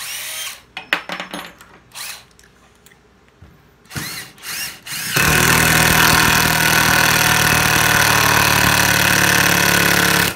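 Makita 14.4 V cordless impact driver (model 131) run with no load: a few short trigger pulls with the motor whining up and back down, then a steady high whine held for about five seconds from about halfway in, stopping abruptly.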